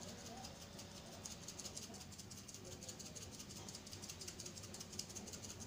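Pizza seasoning shaken from a small shaker jar, the dry flakes rattling faintly in a quick, steady rhythm.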